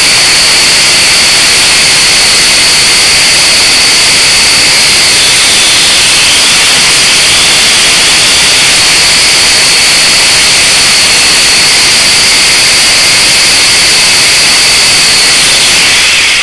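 Blade 180QX micro quadcopter's four small electric motors and propellers whining steadily and loudly, heard up close with a high steady tone over a hiss, fading right at the end.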